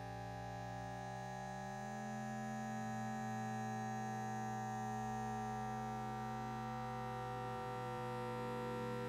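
A cough slowed down enormously by time-stretching until it becomes a droning hum of held tones. The tones shift slowly in pitch, with the lower ones moving about two seconds in and again near the end.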